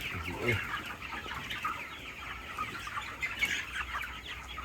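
A flock of chickens clucking and calling, many short overlapping calls at once.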